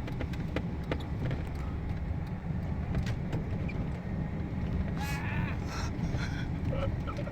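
Pickup truck engine running with a steady low rumble, with scattered light clicks and a brief high-pitched cry about five seconds in.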